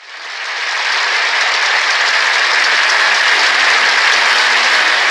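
A steady, even hiss of noise that fades in over the first second and then holds.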